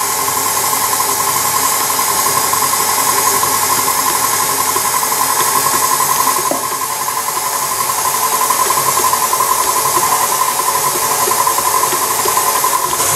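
KitchenAid stand mixer running steadily with a constant whine, its dough hook kneading flour and water into a rough dough.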